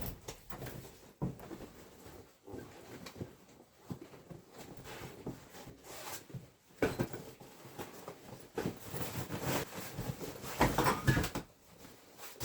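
Irregular rustling and soft knocks of someone handling gear and clothing, growing busier and louder about nine to eleven seconds in.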